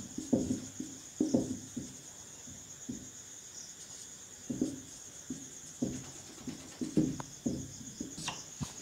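Marker pen writing on a whiteboard in short, irregular strokes, over a steady high chirring of crickets.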